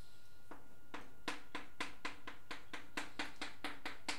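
Chalk on a blackboard: a quick run of short strokes, about four to five a second, starting about half a second in.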